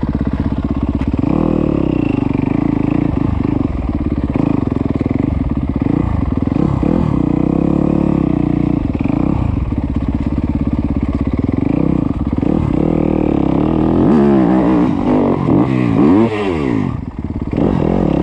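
Yamaha YZ250F dirt bike's single-cylinder four-stroke engine running as it is ridden, the revs rising and falling several times in quick succession near the end.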